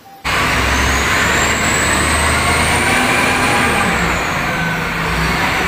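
Wheel loader's diesel engine running hard while lifting a loaded bucket, with a steady low rumble and a high whine that rises and then falls. It starts abruptly just after the beginning.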